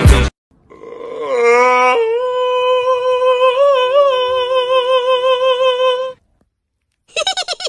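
A song cuts off at the very start. Then a small toy poodle gives one long howl that rises over its first second and holds steady with a slight waver for about four seconds before stopping.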